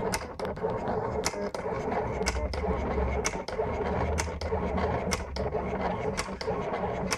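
Silhouette Portrait cutting plotter cutting a design: its carriage motors whir steadily as the blade head moves across the sheet, with frequent sharp clicks.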